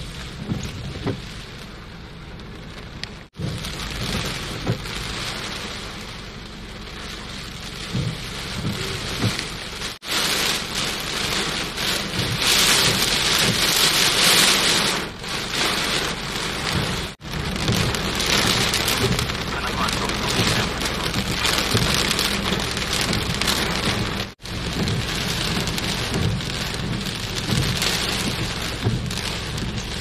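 Heavy storm rain pouring down, a steady hiss that swells loudest about halfway through. The sound breaks off for an instant four times.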